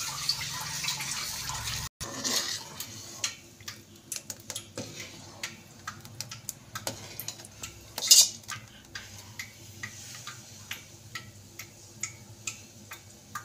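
Metal spoon stirring thick guava pulp and sugar in a metal kadhai, scraping and clinking irregularly against the pan, with one louder clank about eight seconds in.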